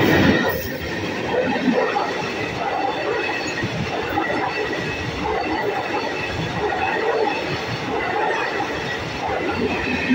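An ALCO diesel locomotive hauling a DEMU rake passing close by at speed. The locomotive is loudest as it goes by at the very start, then the coaches' wheels keep up a steady rush and clatter on the rails.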